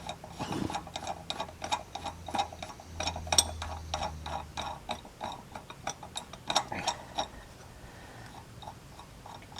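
Quick, irregular clicking and ticking of hand tools and metal parts being handled, about three or four clicks a second, thinning out near the end; a faint low hum underneath for the first half.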